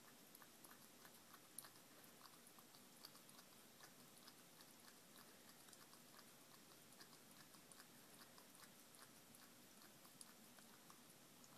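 Faint chewing of a Himalayan cat eating, many small irregular clicks of its bites throughout.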